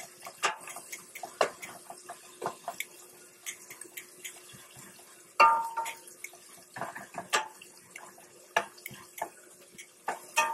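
Sliced onions being stirred in a stainless steel saute pan: scattered knocks and scrapes of a utensil against the metal over a light sizzle of the oil. The loudest knock comes about five seconds in and rings briefly.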